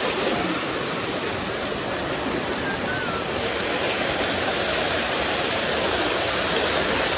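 A small stream's water running with a steady rush.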